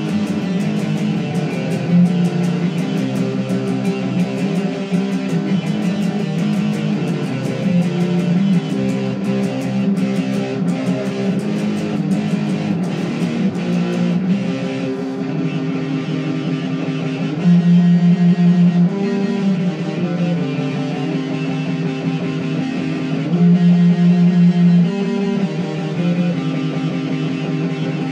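Guitar music with held chords and notes.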